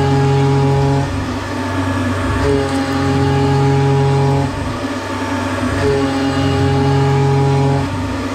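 Tormach 770M CNC mill's spindle and end mill roughing a pocket in 6061 aluminum: a steady machine whine with cutting noise beneath. It comes in passes, with the tone and level dipping briefly about every two to three seconds as the tool changes path.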